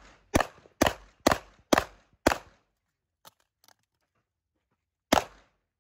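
Rapid pistol fire from a 9mm CZ Shadow 2 with a red-dot optic, in a USPSA Carry Optics stage: five sharp shots about half a second apart, then a pause of nearly three seconds with two faint clicks, then one more shot near the end.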